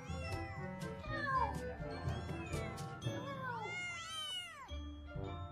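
Kitten meowing several times, each meow rising then falling in pitch; the loudest, longest meows come near the end. Background music plays underneath.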